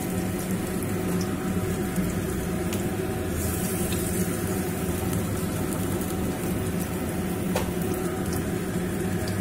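Hot oil sizzling steadily in a frying pan as spoonfuls of mustard-flower fritter batter are dropped in to shallow-fry, over a steady low hum. A faint click comes about seven and a half seconds in.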